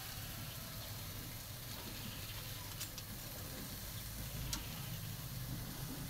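Beef sizzling on a charcoal grill with a steady hiss, with a few sharp clicks of metal tongs against the grill grate as the meat is turned.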